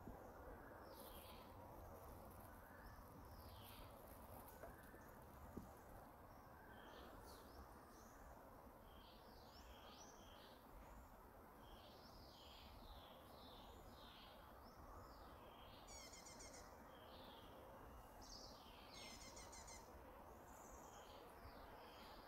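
Faint small birds chirping, many short high sliding notes one after another, with three brief rapid buzzy trills in the last few seconds over a soft steady outdoor hiss.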